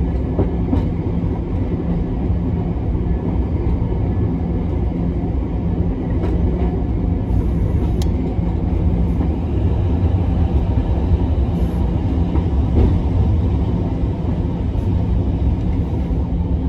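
Hiroshima Electric Railway 1900-series tram (a former Kyoto city tram) running along its line: a steady low rumble of wheels on rail and running gear, with a few light clicks.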